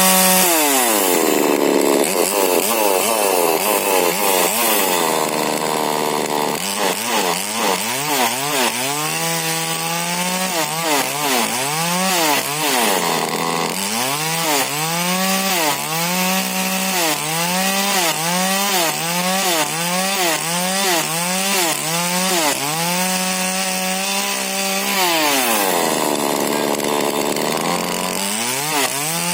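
Two-stroke 40cc Husqvarna chainsaw with a modified exhaust cutting wood, its engine pitch rising and falling over and over, about once a second. The pitch sinks low near the end, then climbs again.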